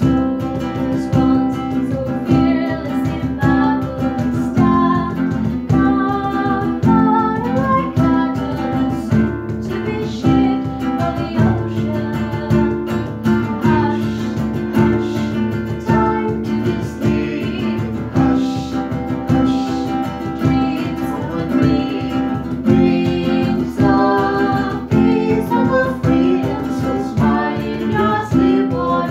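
Live acoustic folk music: a woman singing a slow Scottish traditional song, accompanied by mandolin, acoustic guitar and cajón.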